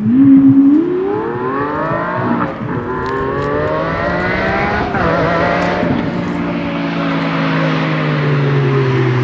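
Lamborghini Aventador's V12 through a Supersprint exhaust, launching hard with a loud burst at the start: the revs climb, break at an upshift about two and a half seconds in, climb again to a second upshift about five seconds in, then the engine note settles and slowly falls as the car comes on.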